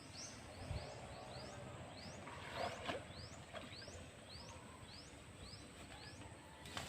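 A bird calling over and over, a short rising chirp about twice a second, over a faint steady high whine, with a couple of brief knocks partway through.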